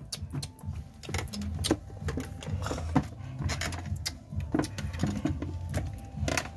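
Small plastic doll and doll-house furniture being handled: a scatter of light clicks and knocks as the pieces are picked up, moved and set down, over a low steady hum.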